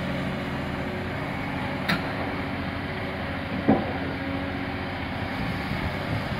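A diesel engine on the demolition site running steadily at idle, with a brief knock about two seconds in.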